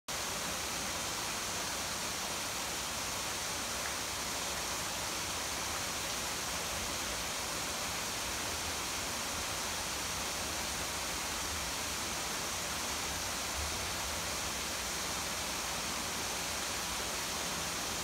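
Steady, unbroken rush of water from a small garden waterfall spilling over rocks, mixed with rainfall.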